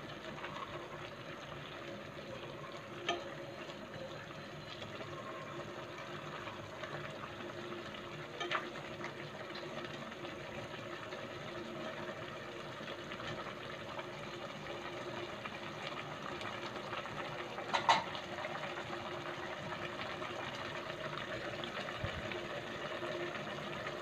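Pot of chicken noodle soup with cabbage bubbling at a steady boil under a faint steady hum. A plastic spoon knocks against the pot a few times: about three seconds in, again about eight seconds in, and loudest about eighteen seconds in.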